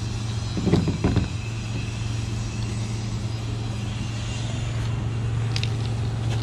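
Steady low hum of an idling engine, with a few light plastic knocks from a vacuum cleaner's clear dust canister being handled and tipped out, about a second in and again around five and a half seconds.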